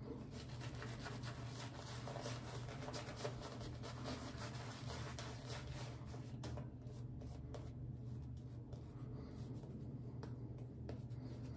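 Boar-bristle shaving brush scrubbing soap lather over a bearded face and neck: a soft, continuous bristly rustle.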